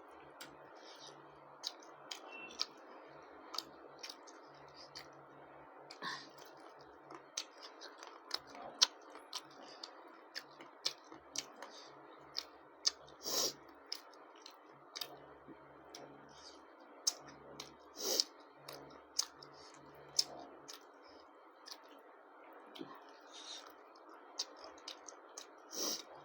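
Close-up eating sounds of a person chewing goat lung with rice and roti: irregular wet mouth clicks and smacks, a few every second, over a steady background hiss.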